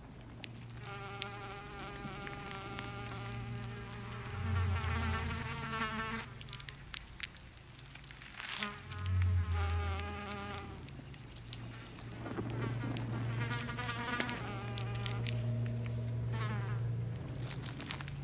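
Insect-like buzzing drone from the performance's electronic score: wavering, buzzy tones over a steady low hum. They swell in three waves, with short deep swells about four and nine seconds in.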